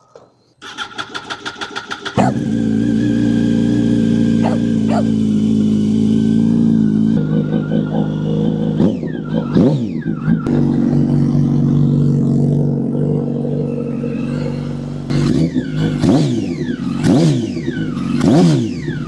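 2006 Yamaha R1's inline-four engine turned over by its starter for about a second and a half, catching and settling into a steady idle, then revved in quick blips several times. It runs through an aftermarket exhaust with no dB killer, and is really loud.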